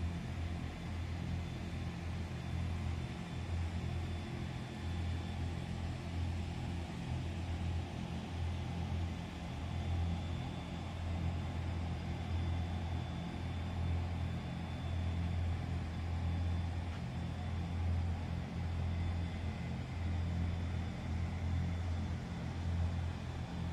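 Steady low mechanical hum of greenhouse machinery, fans and motors running, with a faint high whine over it.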